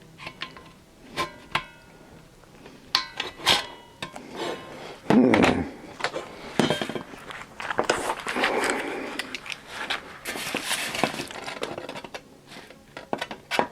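Hand tools working a thin stainless-steel utensil bin: sharp metallic clicks and clinks, some ringing briefly, then denser scraping and rattling of the sheet metal a few seconds in.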